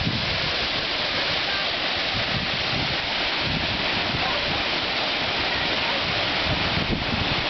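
Waterfall rushing with a steady, loud roar, with gusts of wind buffeting the microphone.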